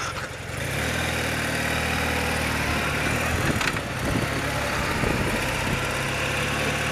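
BMW motorcycle engine pulling away from low speed about a second in, then running steadily in a low gear.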